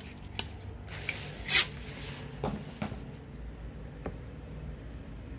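Printed sticker sheet being handled and rubbed against a glass tabletop: a few short scrapes and rustles, the loudest about a second and a half in, over a steady low hum.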